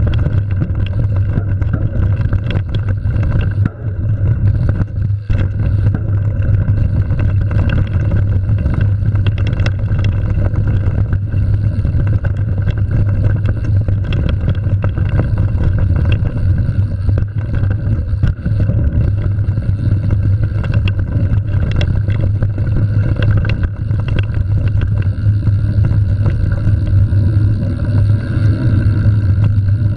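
Mountain bike riding down a dirt singletrack, picked up by a camera mounted on the bike: a loud, steady low rumble of tyres on the trail, broken by frequent short rattles and knocks as the bike goes over bumps.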